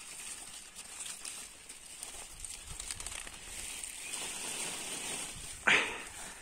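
Leaves rustling and crinkling as a lettuce is handled among potato plants, with one short, loud sharp sound near the end.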